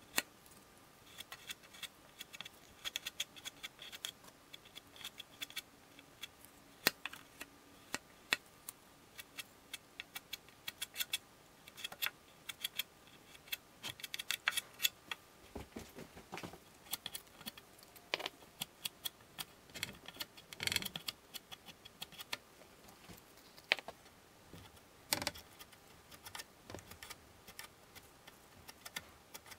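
Metal putty knife scraping and clicking against pine as it spreads and presses wood filler into knots, in short irregular strokes.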